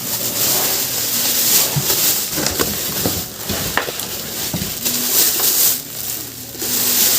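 Packaging being handled as a strobe light is unboxed: crinkling and rustling with scattered clicks.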